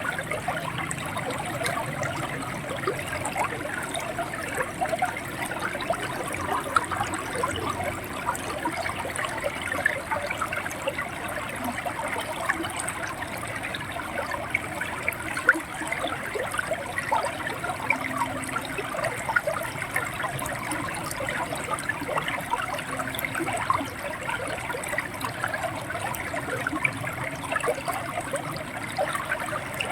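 River water running and gurgling over stones: a steady rush of flowing water, flecked with many small splashes and bubbling trickles.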